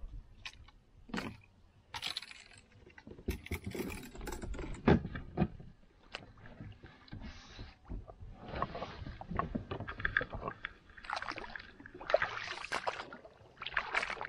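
Irregular knocks, clicks and scrapes from someone shifting about and handling gear in a plastic sit-on-top fishing kayak, with one sharper knock about five seconds in.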